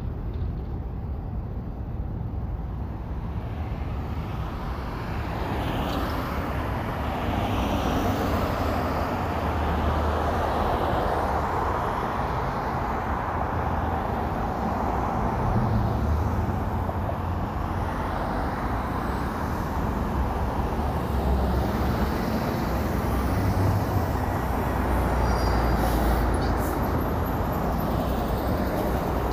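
Road traffic ambience: a steady rumble of vehicles on a road that swells a few seconds in as traffic passes.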